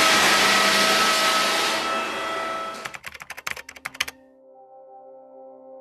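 Floor sanding machine running with a steady whine, dying away about three seconds in. Then a flurry of rapid typing-like clicks and soft, sustained music notes.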